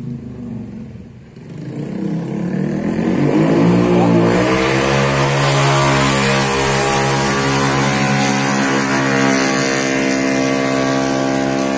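An engine running close by: its pitch rises over about two seconds, then it holds a steady note.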